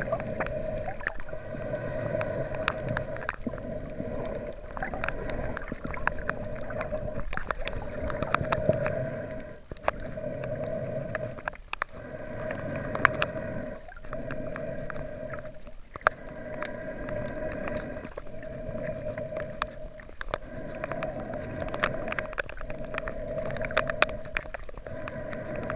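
Underwater sound picked up by a camera held below the surface while snorkeling: a steady muffled hum with scattered sharp clicks, dipping briefly every couple of seconds.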